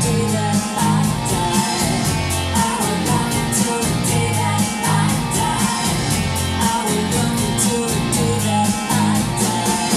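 A song with singing, guitar and a steady beat, played back from a Denon DRM-650S cassette deck through Tannoy M2 loudspeakers.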